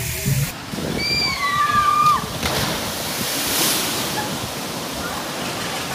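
Water rushing and splashing down a log flume ride's chute. A high voice rises and falls once about a second in.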